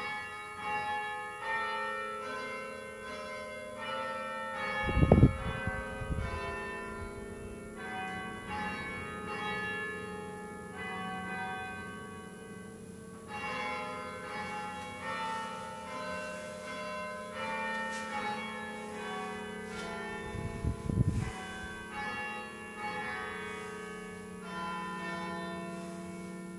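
Bells ringing, struck one after another in a continuous run of overlapping, ringing notes that starts suddenly. Two loud low thumps cut through, once about five seconds in and again about twenty-one seconds in.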